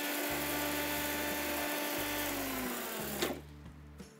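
Preethi mixer grinder running, its small steel jar grinding roasted fennel seeds to powder with a steady whine. The motor slows and stops about three seconds in, with a click.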